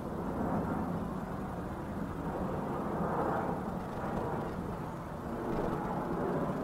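A steady low rumbling noise that swells and eases slightly, with no distinct events in it.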